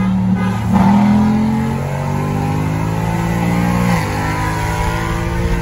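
A 2021 Ford Mustang GT's 5.0 V8 at wide-open throttle, heard from inside the cabin. The engine note jumps about a second in and climbs steadily in pitch, drops at an upshift of the 10-speed automatic about four seconds in, then climbs again.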